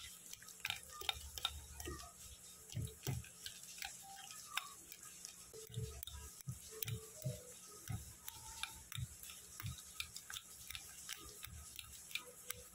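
Fork mashing overripe bananas in a glass bowl: soft squishing thumps and irregular light clicks of the fork against the glass.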